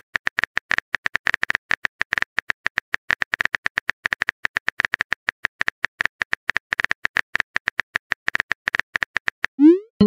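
Phone keyboard typing sound effect: rapid, uneven key clicks, many a second, as a message is typed. Near the end a short rising whoosh plays as the message is sent.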